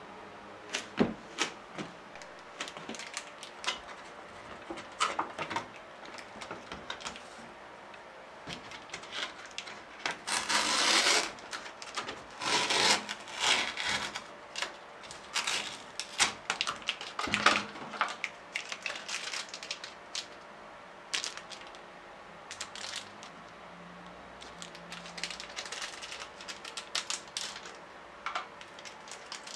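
Handling of an instant ramen cup: its paper lid peeled back and plastic seasoning sachets crinkled and torn open, a string of light clicks and rustles with longer tearing rustles around ten to thirteen seconds in.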